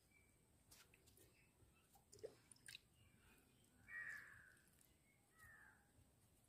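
Near silence: quiet outdoor background with a few faint ticks, and two short, faint calls about four and five and a half seconds in.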